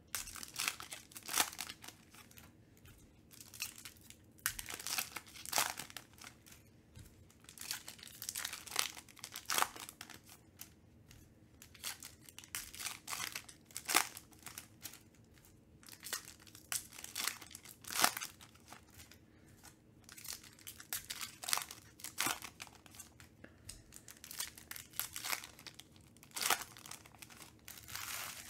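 Foil trading-card pack wrappers being torn open and crinkled by hand: irregular crackling and tearing rustles throughout, with sharp crinkles here and there.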